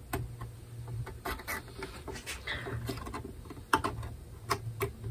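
A small knife blade scraping and ticking at the binding along the edge of a bowl-back mandolin's top, working it loose. The ticks and scrapes come at irregular times over a low steady hum.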